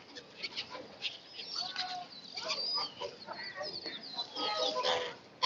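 A crowd of lagoon waterbirds (ducks, geese and gulls) calling over one another in many short, overlapping squawks and chirps, typical of birds crowding people who feed them. A sharp knock comes right at the end.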